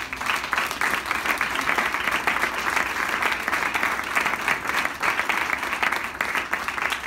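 Small audience clapping steadily.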